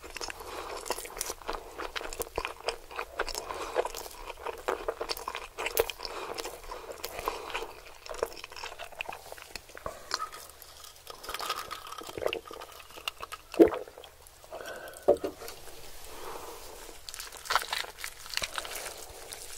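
Close-miked chewing of roast chicken, with moist mouth sounds and small crunches, and two louder sharp sounds about a second and a half apart midway. Near the end, crackling and tearing as gloved hands pull the whole rotisserie chicken apart.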